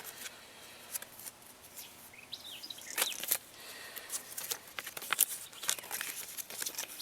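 Paper rustling and crinkling as leaflets and cards from the box are handled and leafed through, in irregular short crackles.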